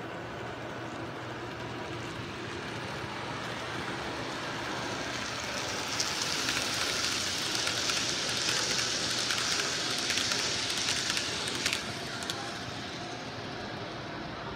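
N-scale model Sounder commuter train rolling past on the track: a rattling hiss with many small clicks that swells about six seconds in and fades out after a few sharper clicks near twelve seconds.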